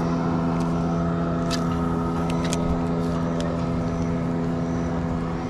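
An engine running at a steady, unchanging pitch, a constant drone, with a few light clicks in the first half.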